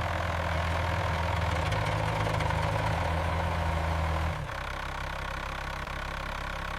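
Tractor engine running steadily with a low, even hum; it drops in level a little over four seconds in.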